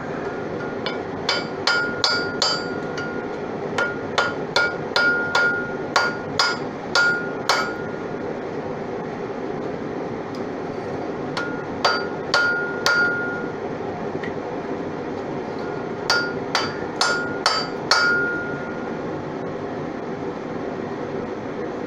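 Hammer striking hot steel on an anvil in three runs of quick blows, each blow followed by a brief ring from the anvil. The light, precise hits are forge-welding two pieces together, over the steady running of the forge's burner.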